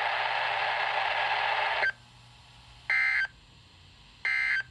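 Weather radio broadcast data tones: a harsh, hissy stretch lasting about two seconds, then two short, shrill bursts of digital data about a second and a half apart, the SAME End of Message code that closes the weekly test.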